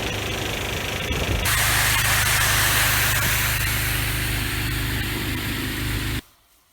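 Loud steady spraying hiss over a low hum. It changes abruptly about a second and a half in and cuts off suddenly near the end.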